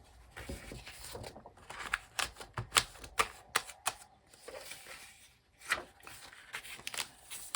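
Paper planner pages being handled and fitted onto a Happy Planner's discbound rings: rustling paper with many irregular sharp clicks, several close together at times.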